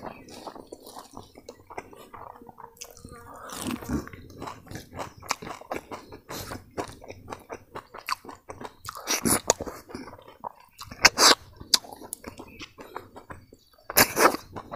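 A person chewing mouthfuls of rice with crispy fried grasshoppers, a run of short crunches and chewing noises close to the microphone, with a few louder bites in the second half.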